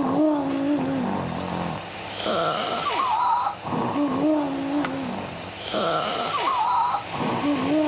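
Cartoon characters imitating a vacuum cleaner with their voices: loud slurping inhales alternate with a wavering hummed roar, in three rounds.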